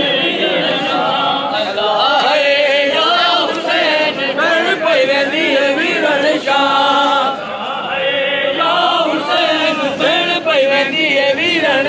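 Many men's voices chanting a Shia noha (a lament for Imam Hussain) together, a sung melody with no instruments.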